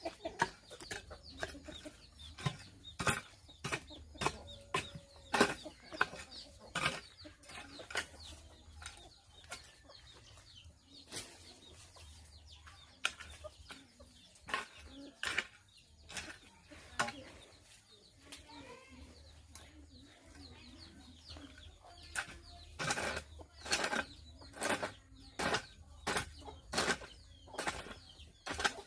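Hoe blade chopping and scraping into dry garden soil in repeated strokes, irregular at about one a second and quicker near the end, with chickens clucking now and then.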